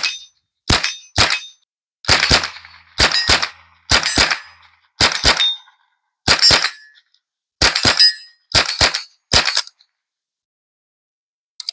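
Savage 64 Precision .22 LR semi-automatic rifle fired rapidly, about twenty shots, many in quick pairs, with steel targets ringing among them. The firing stops a little under ten seconds in, and a faint click comes near the end.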